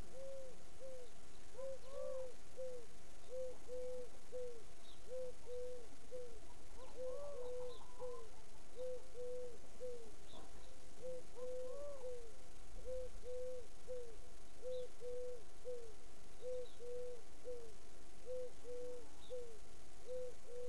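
A bird hooting over and over in short, low notes, in runs of two or three at about two notes a second. A few higher rising-and-falling calls and faint, brief chirps are mixed in.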